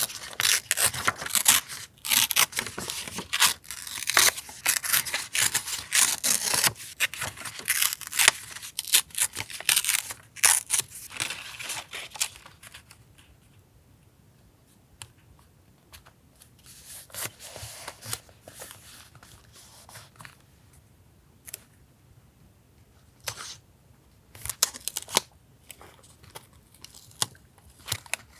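Paper being torn and handled: dense, crackly tearing and rustling for about the first twelve seconds, then softer, scattered rustles and small taps.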